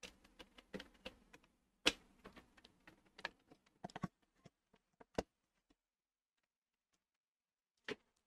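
Small objects being handled and set down: scattered clicks and light knocks, the loudest about two seconds in, then a gap of about two seconds before one more knock near the end.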